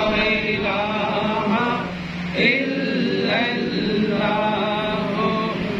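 Melodic male devotional chanting: a voice sliding up and down in long held phrases, with a short drop about two seconds in.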